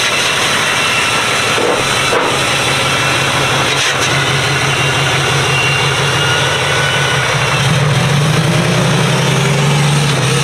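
Lifted Ram pickup's engine running as the truck rolls down off a trailer and drives across grass; its low, steady drone grows louder near the end as the truck comes close.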